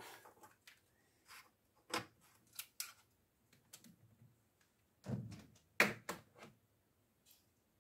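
Scattered light clicks and taps of clear plastic cube stands and puzzle cubes being handled and set down on a wooden shelf, with a soft thud about five seconds in and the sharpest click just after it.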